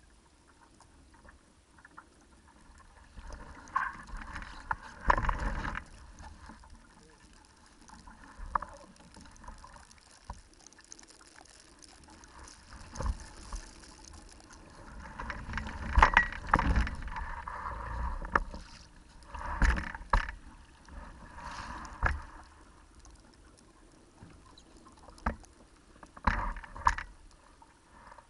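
Sailing dinghy under way: water slapping and gurgling against the hull in irregular surges, with wind buffeting the camera microphone and scattered knocks from the boat and rigging.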